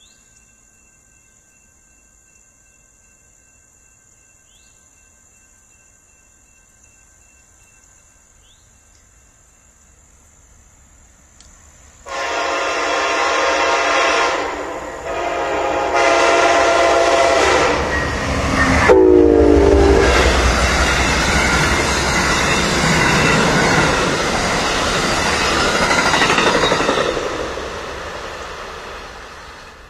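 A train's locomotive air horn sounding the grade-crossing signal (long, long, short, long), its pitch dropping as the locomotive passes. The train then goes by with a loud rolling rumble and wheel clatter that fades near the end.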